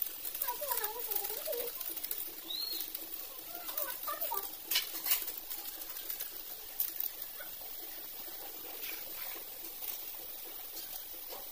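A hand mixing chopped raw vegetables and ground spices in a steel bowl: soft rustling with scattered clicks, the sharpest about five seconds in. Faint wavering calls sound in the background during the first few seconds.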